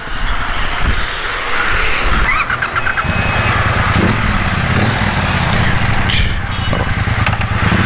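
Triumph Bonneville Bobber's 1200 cc parallel-twin engine running under the rider, settling into a steady low engine note from about three seconds in.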